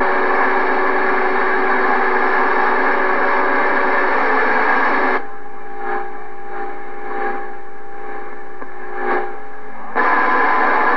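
CB radio receiver hissing with static and steady whistling tones, heard during a dead-key signal check with an unmodulated carrier and no voice on it. The hiss drops to a quieter hum with faint tones about five seconds in and comes back loud near the end.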